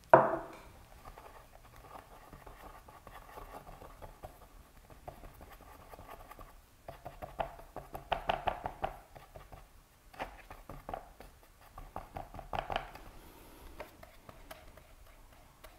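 A single knock right at the start as a glass jar is set down on the table, then a paintbrush tapping and scraping in short clusters, mixing paint on the palette and stroking it onto sketchbook paper.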